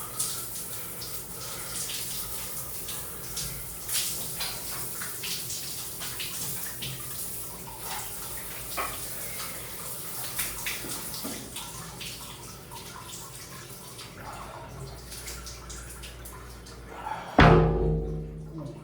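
Rainwater running and splashing, with many small drips and taps. A sudden loud knock comes near the end.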